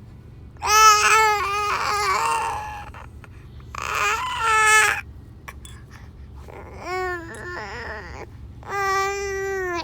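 A high-pitched voice making crying, wailing sounds in four bouts, some wavering and some held on one note, like an infant's cry.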